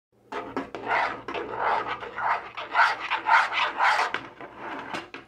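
Metal spoon stirring thick flour batter in a metal saucepan, scraping against the pan in quick rhythmic strokes, about two to three a second, that ease off near the end.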